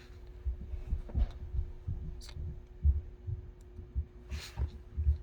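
Soft, irregular low thumps, several a second at times, over a faint steady hum.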